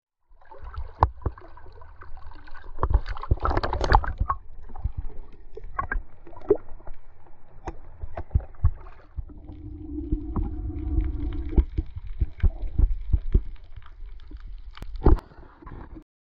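Sea water sloshing and lapping around a camera held at the surface, with gurgles and sharp knocks as small waves wash over it. A low steady hum comes in for about two seconds near the middle.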